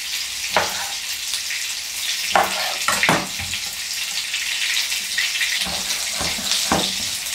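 Breaded portobello mushrooms frying in vegetable oil in a pan: a steady sizzle, with a few short knocks scattered through it.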